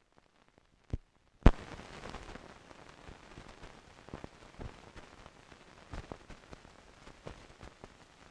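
Hiss and crackle from a silent newsreel film's blank soundtrack: a click about a second in, a loud pop half a second later, then steady hiss with scattered clicks and pops.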